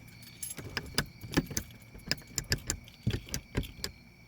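Keys jangling and a series of irregular light clicks as a car key and fob are worked, with no response from the car: no starter cranking, because its electrical system is dead.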